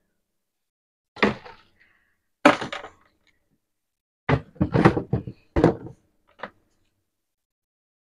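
Kitchen clatter: about six separate knocks and thuds of pots and utensils being handled, several bunched together around the middle.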